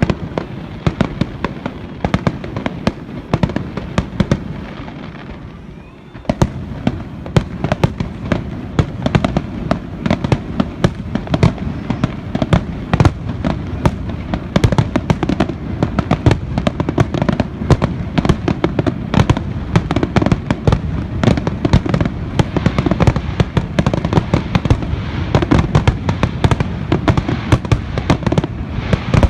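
Fireworks display: a dense, continuous barrage of bursting shells and crackling. It eases briefly about five seconds in, then picks up again.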